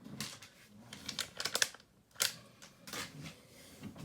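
Crinkling and rustling of foil booster-pack wrappers being handled, in short irregular bursts, the loudest about one and a half seconds and two and a quarter seconds in.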